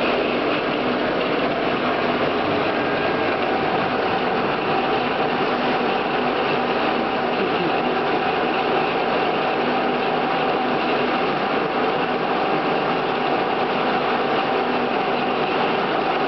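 Select 14" x 30" geared-head engine lathe running with its spindle turning: a steady, even whir from the gearhead with a constant whine over it.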